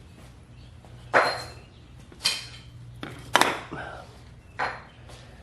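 Metal striking metal during suspension work: four sharp clanks about a second apart, each ringing briefly.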